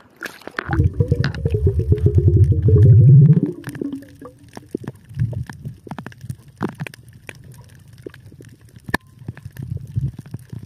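Underwater sound: a loud gurgling rumble of bubbles for about three seconds, falling slightly in pitch, then quieter scattered clicks and crackles.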